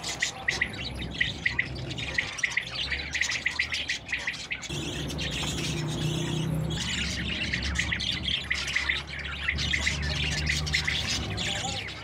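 A flock of budgerigars chattering, with many quick, overlapping chirps and squawks throughout.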